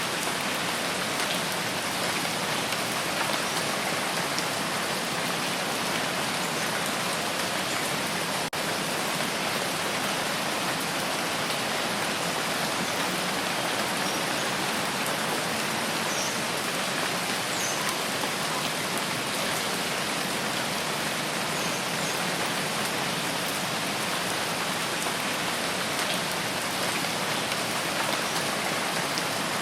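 Steady rain falling, an even, unbroken hiss of many drops that does not let up.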